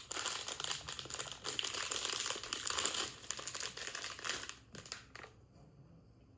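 Plastic packaging crinkling and rustling as a blind-box figure is unwrapped by hand; the crackling stops about four and a half seconds in.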